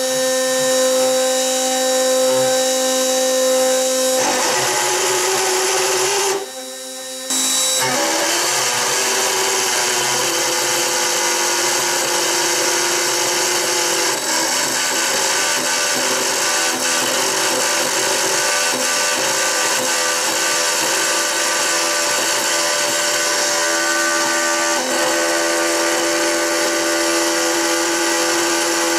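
X-Carve CNC router's spindle driving a 3 mm end mill through an aluminium plate: a loud, steady machining noise with several held tones whose pitch shifts a few times. It drops quieter for about a second around six seconds in, then the cut goes on. The cut is chattering, the bit dancing in the groove.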